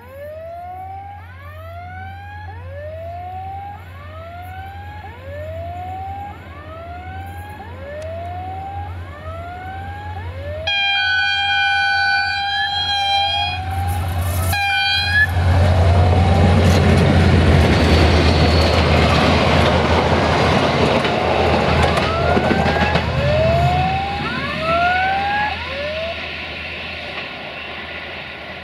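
CFR class 64 diesel-electric locomotive sounds its horn, a steady chord for about three seconds and then a short second blast. It then passes with a loud rumble of engine and wheels that peaks and fades as the coaches go by. Before the horn and again near the end, an electronic warning tone rises in a whoop about once a second.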